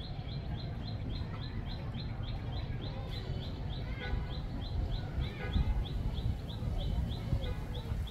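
Outdoor forest ambience: a steady run of short high chirps, about four a second, over a low rumble, with a few fainter wavering calls around the middle.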